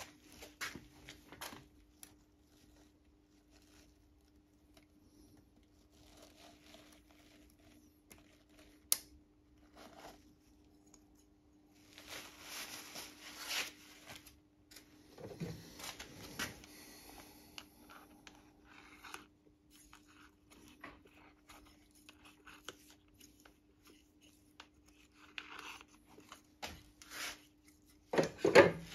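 Scattered scraping, rustling and handling noises of hands and tools working at a piston in an engine block's cylinder bore. There is a sharp click about nine seconds in, longer scraping stretches around the middle, and a louder clatter near the end.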